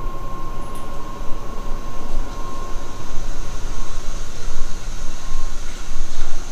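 Loud steady rumble of machinery in a boiler room where a natural-gas-fired boiler is running, with a faint steady whine that fades out about five seconds in.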